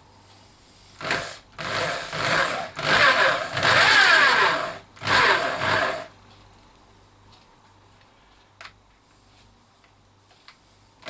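Pistol drill spinning the Z-axis ballscrew of a home-built CNC router, driving the ballscrew nut and carrier along the axis. It runs in four bursts between about one and six seconds in, its motor pitch rising and falling with the trigger, then stops.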